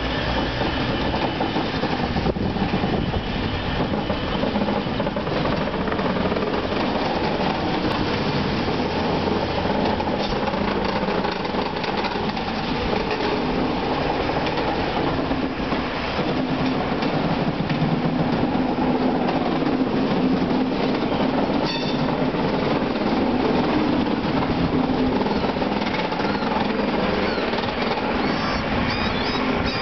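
ICE passenger train rolling slowly over the tracks onto a train ferry. Its wheels squeak and creak on the rails, with scattered clicks, and high wavering squeals come near the end.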